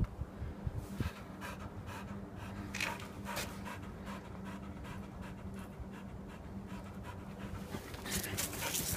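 A puppy panting in short, uneven breaths, over a faint steady hum.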